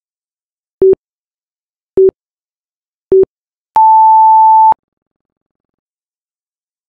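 Interval timer's electronic beeps: three short low beeps about a second apart, then one long higher beep. They count down the last seconds of the final 20-second work interval and mark the switch to rest.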